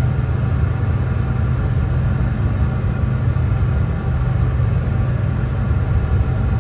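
Steady brown noise: an even, unchanging hiss weighted heavily to the low end, most of its energy below about 200 Hz.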